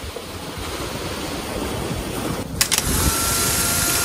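Sea water washing and wind buffeting the microphone, with a louder, brighter hiss of rushing or splashing water setting in about two and a half seconds in.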